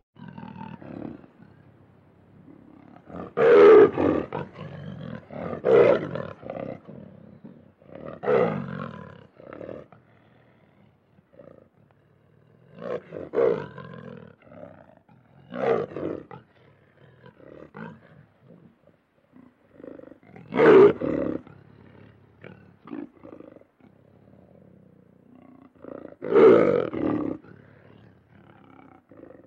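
Lion roaring: about seven loud roars a few seconds apart, the loudest about four seconds in and again near twenty-one and twenty-six seconds, with quieter grunting calls between them.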